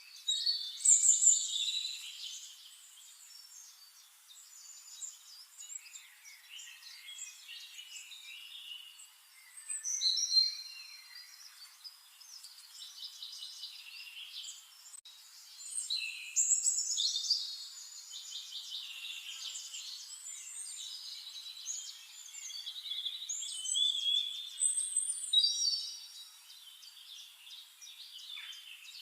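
Sparrows chirping and chattering: loud bursts of many quick, high chirps every several seconds, with softer chirping in between.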